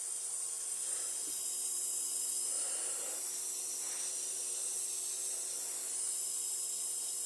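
MFJ-4275MV switching power supply running with its cover off: a steady high hiss over faint steady hum tones. There is no crackling "frying" from the capacitors on this side of the board, which seems quiet, so these capacitors don't sound like the bad ones.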